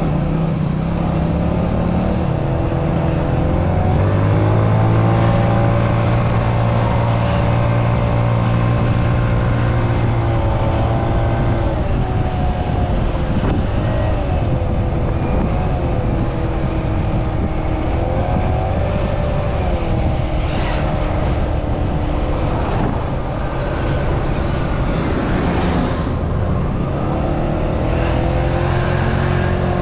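Italika D125 scooter's 125 cc engine running on the move, its note rising and falling repeatedly with the throttle, over a steady rushing noise.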